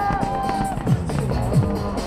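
Pop music with a steady thudding beat, played loud over the fireworks display. A long held note ends about three quarters of a second in, and two sharp bangs cut through the music.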